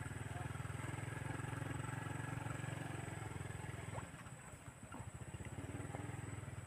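A small engine running steadily nearby, a low pulsing drone that dips briefly about four seconds in and then picks up again.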